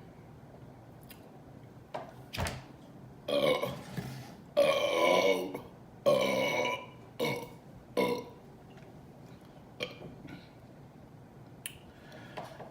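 A woman burping a run of separate voiced burps, five of them loud, the longest lasting about a second. The burps are brought up by gulping a litre of carbonated Mountain Dew.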